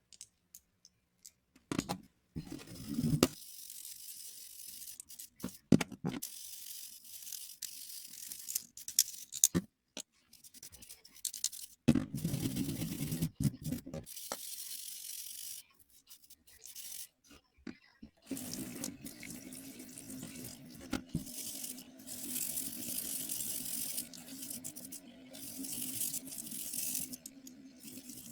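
Scratchy brushing or scrubbing on the metal of old pliers, in spells with clicks and short pauses; a low steady hum joins about two-thirds of the way in.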